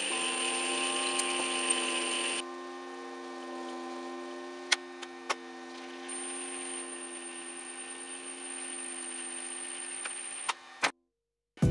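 Small metal lathe running with a steady whine. For the first couple of seconds a drill bit cuts into the spinning aluminium part, then a few light tool clicks, and the sound stops abruptly near the end.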